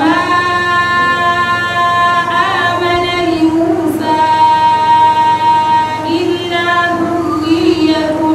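A girl's voice chanting Qur'anic recitation melodically, drawing out long held notes in phrases with short breaks between them.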